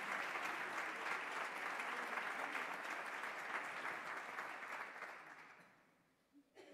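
Audience applauding, the clapping dying away about five to six seconds in.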